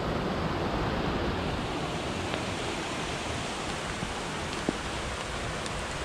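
Steady rush of a flowing creek, with a couple of faint knocks about two and a half seconds and nearly five seconds in.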